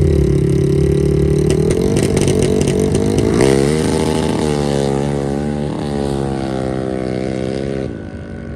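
Two ATV engines at a drag-race start, held at a steady rev on the line, then launching and accelerating hard through the gears: the pitch climbs, drops at each shift, twice, and climbs again. Near the end the sound falls away as the quads run off down the track.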